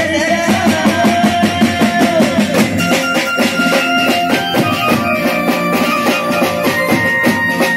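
Live band playing an instrumental passage of a Gujarati folk song: a keyboard melody over a steady drum-kit and dholak beat.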